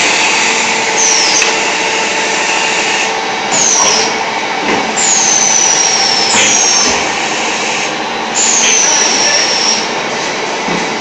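An MM600 terrazzo floor tile making machine running, a loud steady din of machinery. Several short high-pitched squeals fall in pitch over it, the longest about three-quarters of the way through.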